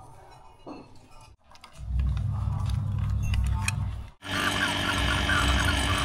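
Light clicks and clinks of tools and fittings being handled. About four seconds in, after a cut, an electric refrigeration vacuum pump is heard running with a steady, dense mechanical rattle.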